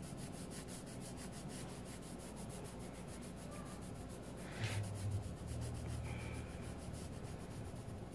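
Coloured pencil scribbling back and forth on a paper page, shading in a word with quick, even strokes, several a second.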